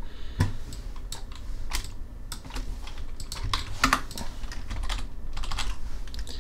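Computer keyboard and mouse clicks: scattered keystrokes and clicks at uneven intervals, over a faint low hum.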